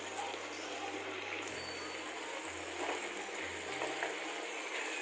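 Potato and brinjal pieces sizzling in hot oil in a pan, with fresh curry leaves just added; a spatula stirs and scrapes through them a few seconds in.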